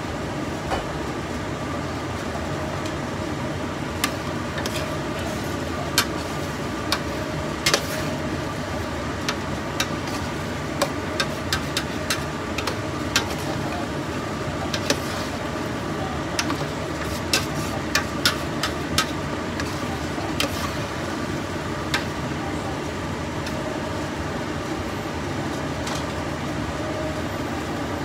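Beef sautéing in a large stainless-steel pot over a steady hiss. From a few seconds in until past the middle, a stirring utensil clinks and scrapes against the pot in scattered sharp knocks.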